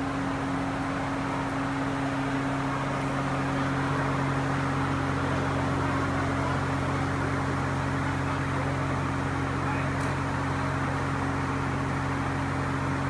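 A steady low hum of a few constant tones under an even hiss, with no music playing.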